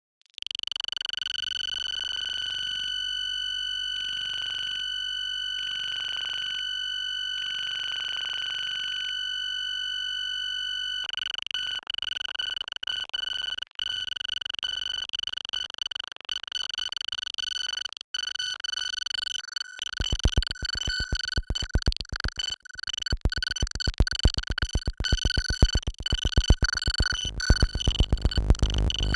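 Oscilloscope music: synthesized electronic tones that are the same signal drawing the vector images on a CRT monitor and laser. Steady high tones with overtones start after a moment of silence, a grainier layer joins after about ten seconds, and from about twenty seconds a fast, low buzzing pulse comes in and grows louder.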